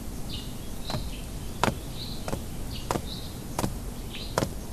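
A series of sharp clicks, about one every two-thirds of a second and spacing out slightly near the end, with faint high chirps behind them.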